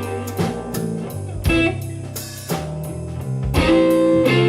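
Blues trio playing an instrumental fill between sung lines: electric guitar lead over bass guitar and drum kit.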